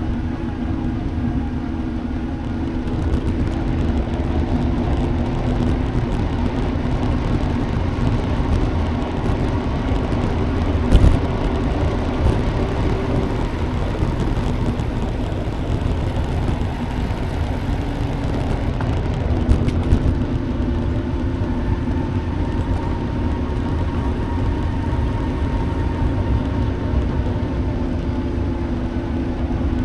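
A multirotor drone's motors and propellers keep up a steady hum, over rough wind noise on the microphone. The hum's pitch wavers near the middle, and there is a brief bump about eleven seconds in.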